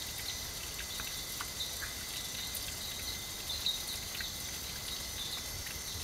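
Night-time rainforest insect chorus: a steady high-pitched drone with short chirps repeating every second or so.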